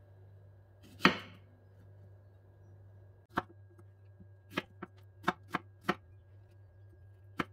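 A knife chopping strawberries on a chopping board: about seven short, sharp knocks of the blade on the board at uneven spacing. A louder, longer clatter comes about a second in.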